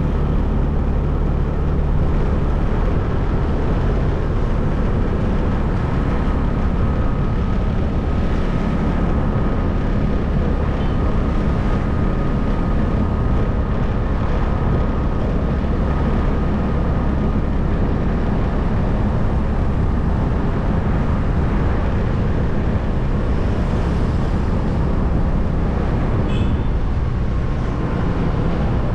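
Steady low rumble of a moving vehicle, with a faint steady whine above it.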